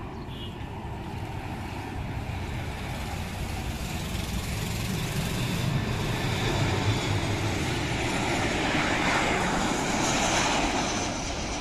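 Twin-engine jet airliner on landing approach with its gear down. Its engine noise is a steady rush that swells as it passes close by, then eases off near the end.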